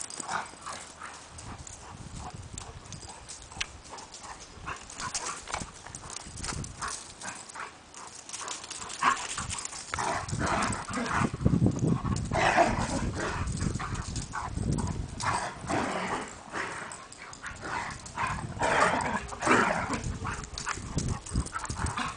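Two dogs running and chasing each other on a grass lawn: quick paw footfalls and scuffling, louder from about ten seconds in.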